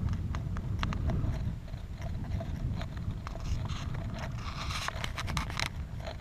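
Hiker's footsteps crunching and scuffing on sandy, gravelly desert ground, with low wind rumble on the microphone. The steps come as irregular crunches, bunched more closely about five seconds in.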